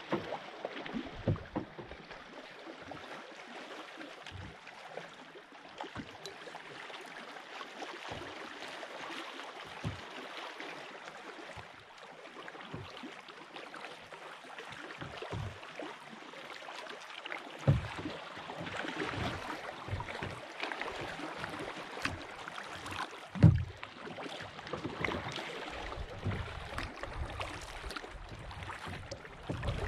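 Water lapping and splashing around a moving kayak, with a few low thumps scattered through, the loudest about two-thirds of the way in.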